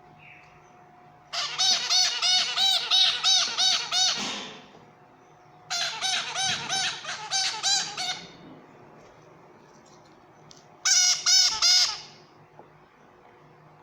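Small pet parrot calling in three bouts of rapid, repeated arching notes, about four a second. The first bout is the longest and the last is the shortest.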